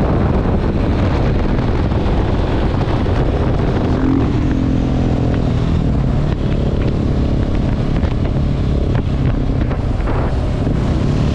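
KTM 690 SMC R supermoto's single-cylinder engine running at speed, with heavy wind noise on the microphone; the engine note shifts in pitch about four to five seconds in.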